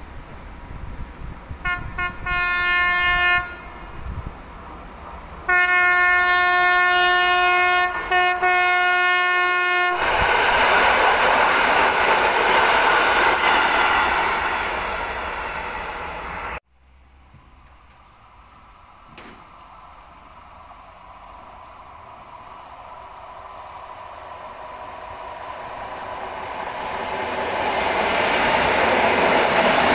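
An EN57 electric multiple unit's horn: several short toots, then one long blast of about four seconds, followed by the loud rumble of the unit passing close. After an abrupt cut, the quieter rumble of another EN57 unit rising steadily as it approaches.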